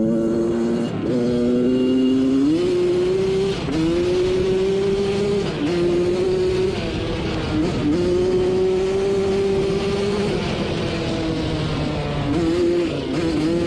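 Yamaha YZ85 85 cc two-stroke single-cylinder engine powering a quad, running hard under load. Its pitch climbs, then dips briefly and picks up again several times.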